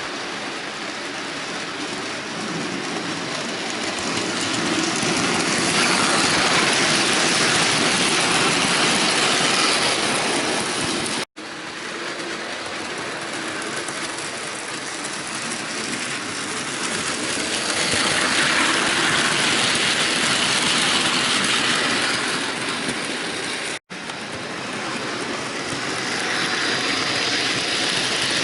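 Bachmann model train running on layout track: a steady motor whir and wheel rattle that grows louder and fades again twice as the train passes close. The sound drops out abruptly for an instant twice.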